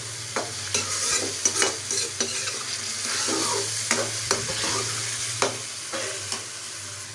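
Chicken in tomato masala sizzling steadily as it is fried in a karahi, with a spatula scraping and knocking against the pan at irregular moments as it is stirred. This is the bhuna stage of chicken karahi: frying on until the oil separates from the masala, which it has not yet done.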